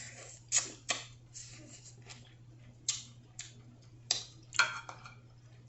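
Snow crab leg shells being snapped and cracked open by hand: a handful of sharp cracks and clicks at uneven intervals, the loudest about half a second in and a little past the middle.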